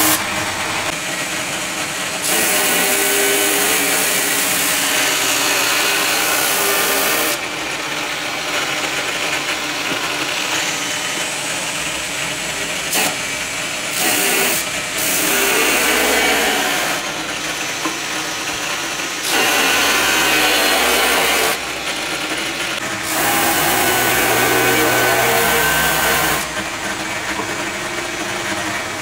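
Angle grinder running a sanding drum, with wood boards pressed against the spinning drum. A steady motor whine runs throughout, and a louder sanding hiss rises and falls over several passes of a few seconds each.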